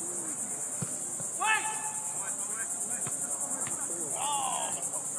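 Steady high-pitched insect chorus with a fast, even pulse, with distant shouts from the field about a second and a half in and again around four seconds.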